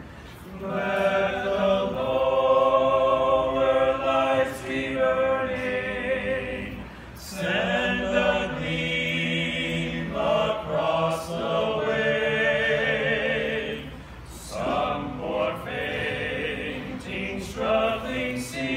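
A small group of men singing a devotional song together in unison, unaccompanied, in sustained phrases with brief breaks between lines about seven and fourteen seconds in.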